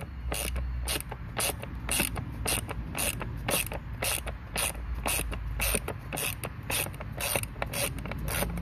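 Ratcheting driver with a Torx T25 bit clicking steadily, about three clicks a second, as it is swung back and forth to back out a screw from a plastic air filter housing.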